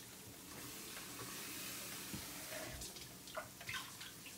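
Kitchen tap running softly as a can is rinsed under it, with a few light clinks about three and a half seconds in.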